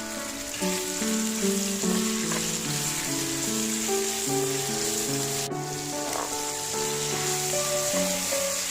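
Food sizzling as it fries in a hot pan, a steady hiss, under background music of held notes that change every half second or so.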